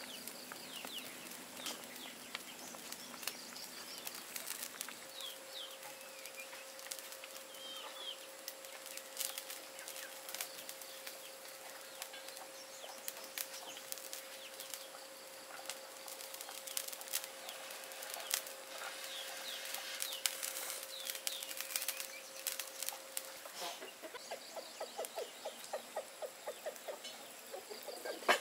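Clay pot of fish broth boiling hard over a small wood fire, with scattered crackling clicks and a wooden spoon stirring, while birds chirp. A steady thin tone holds through most of the middle, and a fast run of short pulses comes near the end.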